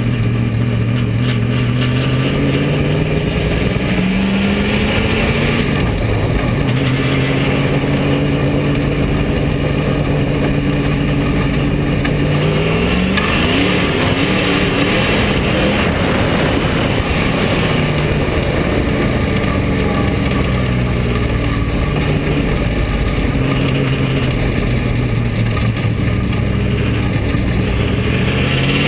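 Bomber-class dirt track stock car's engine heard from inside the cockpit, running at steady part throttle for stretches with its pitch rising and falling, climbing about halfway through and again near the end.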